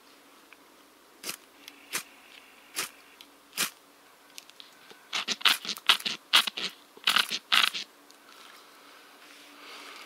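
A small ferrocerium rod (FireFly) scraped along a Victorinox Trailmaster's saw blade to throw sparks onto birch bark tinder: four single scraping strikes about a second apart, then a louder quick run of a dozen or so strikes around five to eight seconds in.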